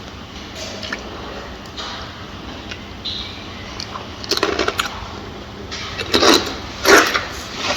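A gorilla making a few short, noisy sounds in the second half, the loudest near the end, over a steady background hum.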